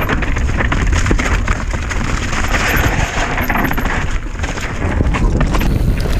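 Polygon Siskiu N9 enduro mountain bike descending a dirt singletrack at speed: tyres running over loose ground with a steady stream of clicks and knocks from the chain and bike over bumps, and wind rumbling on the microphone.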